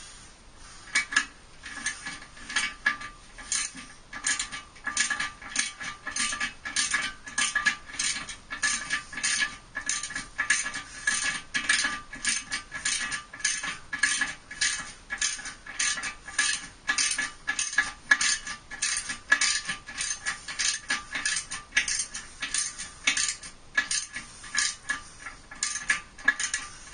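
Ratchet wrench clicking steadily as it tightens the toilet's hold-down bolts, two or three clicks a second.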